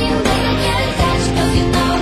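Music: a song playing steadily.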